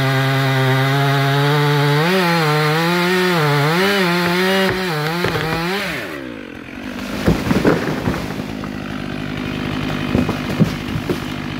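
Stihl MS 500i chainsaw running at full throttle through the felling cut, its revs dipping and recovering as the chain loads in the wood, then throttled back to idle about six seconds in. Then a cluster of loud cracks and thuds as the tree falls and crashes down, with a few more snaps near the end while the saw idles.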